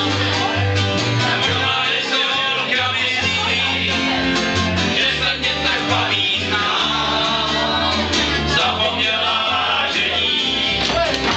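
Live acoustic band playing a song: a strummed acoustic guitar and a plucked upright double bass, with singing over them.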